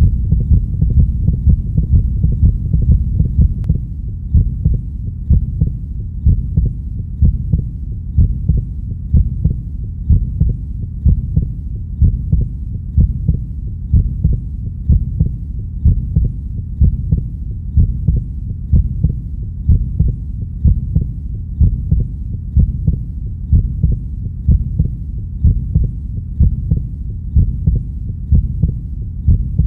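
Recorded heartbeat: low thumps in a steady, even rhythm over a continuous low background, dropping slightly in level about four seconds in.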